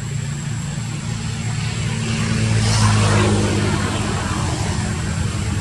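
A steady engine hum that swells as it passes, loudest about halfway through, then eases off.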